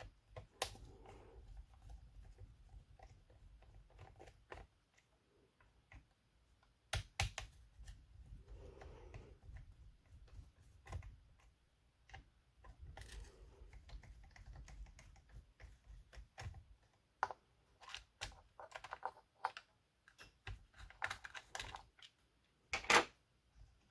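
Scattered small clicks and ticks of screws being backed out with a small driver and plastic covers being handled on an RC car chassis, with a few stretches of low handling rumble.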